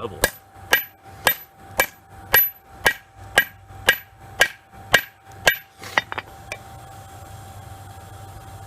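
Hammer blows on a hot railroad spike on an anvil, about two a second, each with a short metallic ring, while the spike's rough shape is forged in. The blows stop after about five and a half seconds, with a couple of lighter taps, leaving a steady hum.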